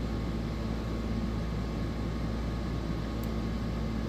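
Steady background hum and hiss, like a fan or air conditioner running, with one faint click about three seconds in.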